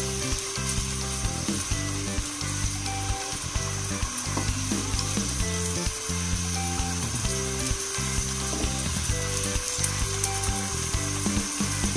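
Cubed chicken breast sizzling in hot oil in a stainless steel pot, being cooked until its released water boils off, with light scrapes and knocks of a wooden spoon stirring it. Background music with held notes plays under it.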